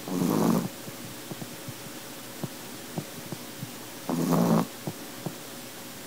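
Sleeping Chihuahua snoring: two short snores about four seconds apart, with faint ticking between them.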